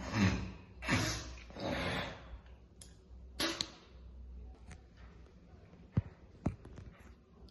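Breathy mouth-and-throat sounds of a cigarette smoker: four short bursts in the first four seconds, the first two the loudest. Two sharp clicks follow near the end.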